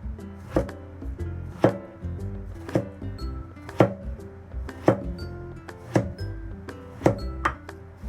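Background music with a steady percussive beat, about one strong hit a second with lighter hits between, over held chords.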